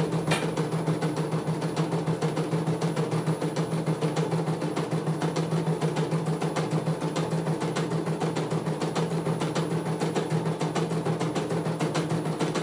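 CNY E900 computerised embroidery machine stitching a design: a rapid, even run of needle strokes, about ten a second, over a steady motor hum, with one sharp click just after the start.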